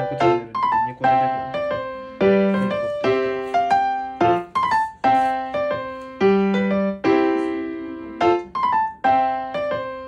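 Background music: a light electric-piano melody with notes struck one after another and left to ring.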